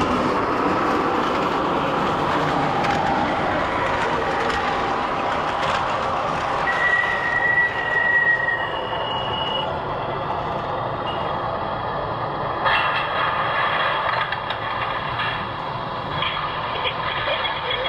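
MTH O-scale model subway train running along its track: a steady rolling rumble, with two brief high squeals near the middle and quick clicking in the second half.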